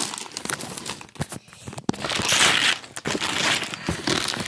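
Wrapping paper crumpling and rustling as a wrapped present is handled up close, with scattered sharp crackles and a louder stretch of rustling about two seconds in.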